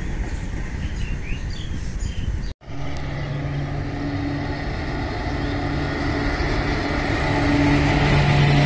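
Outdoor rumble with a few faint bird chirps, cut off abruptly about two and a half seconds in. Then comes the steady low hum of an Indian Railways WAG-7 electric locomotive hauling a container freight train, growing louder as it passes close by.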